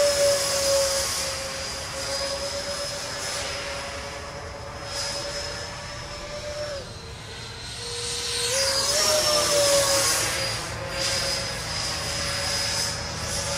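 Twin electric ducted fans of a Freewing MiG-29 RC jet whining steadily in flight. The pitch drops about seven seconds in as the fans slow, then climbs back a second and a half later, and the sound is loudest around nine to ten seconds in.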